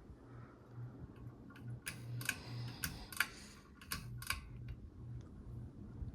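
Litex Sheffield ceiling fan running with a low motor hum that pulses about twice a second. A few sharp clicks come in pairs in the middle.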